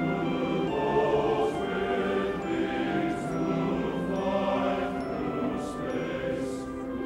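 Music, a choir holding long sustained chords that change about every second or two.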